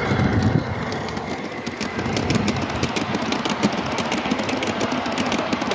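Large-scale model train, an Amtrak-liveried locomotive hauling passenger cars, running past close by: a steady rumble with rapid clicking of the wheels over the rail joints.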